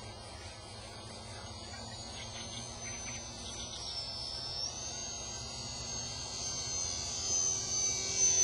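Brushless electric motor and propeller of a small RC scale model plane whining in flight. It is a high whine that dips in pitch about four seconds in, rises back, and grows louder as the plane comes closer.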